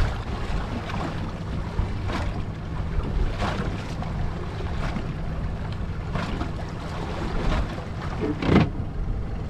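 Waves slapping against the hull of a small fishing boat about every second and a half, with one louder slap near the end, over a steady low rumble of wind and water.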